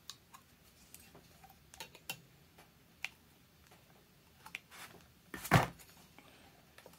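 Scattered light clicks and taps of a metal hand tool working at a jet pump's drive shaft seal collar as it is pried out, with one louder knock about five and a half seconds in.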